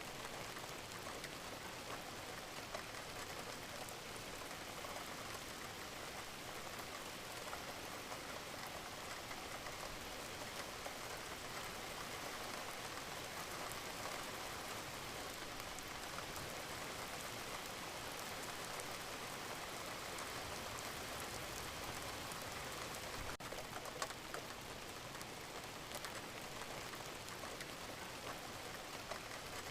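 Steady rain falling, many separate drops landing on a surface, with one sharper click about three-quarters of the way through.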